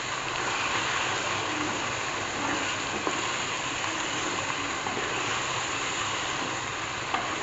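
Raw chicken pieces frying in hot oil with onions, tomatoes and chillies in an aluminium pot while being stirred with a spatula: a steady sizzle.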